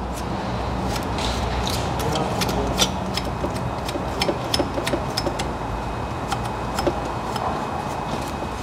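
Hand scraping and wiping at the metal thermostat housing mounting surface of an engine to clean off old gasket, giving many small irregular clicks and scrapes over a steady low hum.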